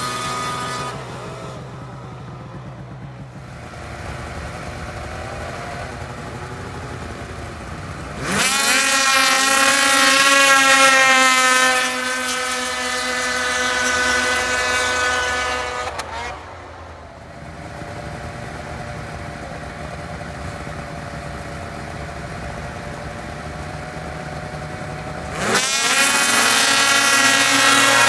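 Several two-stroke mountain snowmobiles racing at full throttle, their engines running at high revs. About eight seconds in, and again near the end, the engines come in loud, their pitch climbing quickly and then holding high as the sleds come up to speed.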